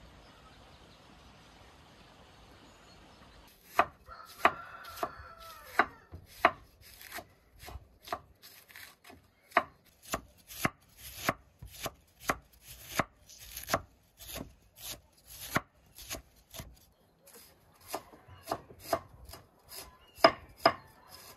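Chef's knife shredding a red cabbage on a wooden cutting board: a run of sharp cuts, about two a second, each stroke coming down through the cabbage onto the board. The cutting starts about four seconds in, after a few seconds of faint background.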